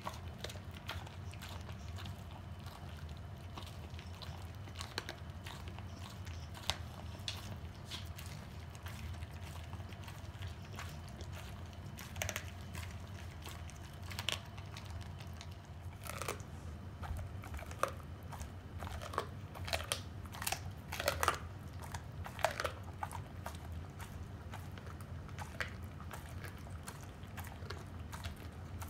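Pit bull chewing a raw half chicken, crunching through the bones in irregular cracks and snaps that come thickest in the middle stretch.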